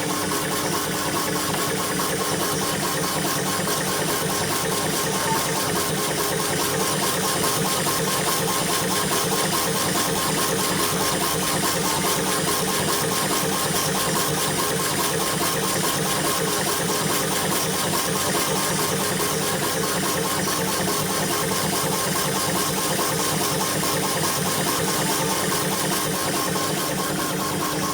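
CNC router and CO2 laser combo machine running a stone job: a steady mechanical hum with several steady tones and a fast, even pulsing, without a break.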